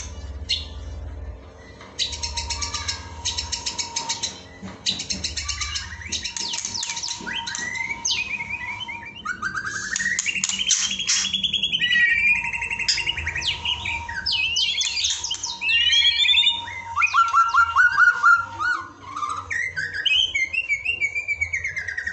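White-rumped shama singing a long, varied song of rapid rattling trills and whistled rising and falling phrases, over a faint steady background tone.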